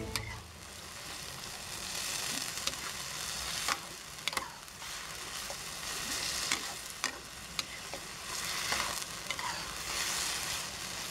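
Vegetables sizzling in a wok as a metal spatula stirs and turns them, the hiss swelling and fading with each toss, with sharp clicks and scrapes of the spatula against the pan a dozen or so times.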